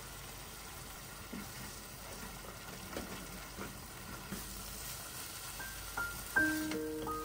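Tofu scramble frying in a nonstick pan: a soft, steady sizzle with a few light taps and scrapes of a spatula stirring it. Near the end a music melody of bell-like notes starts and is louder than the frying.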